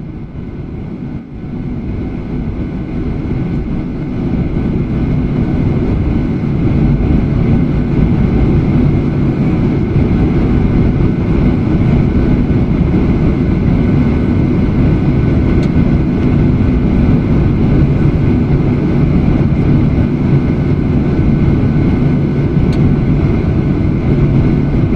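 Jet airliner engine noise heard inside the cabin: a steady low drone with a constant hum. It grows louder over the first several seconds, then holds steady.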